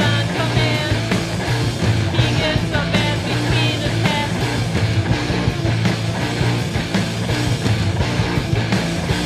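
Punk rock band recording playing at full volume, with bass, drums and guitar, and a wavering high line over the first few seconds.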